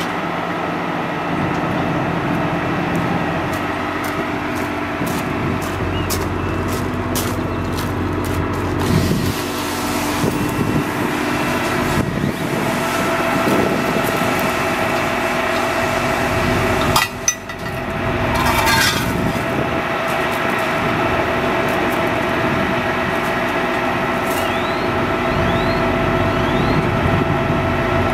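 Diesel engine of a 2007 Peterbilt 340 crane truck running steadily, driving the crane's hydraulics as the outrigger jacks are worked and raised. A run of sharp clicks comes early on, and a short burst of hiss about two-thirds through.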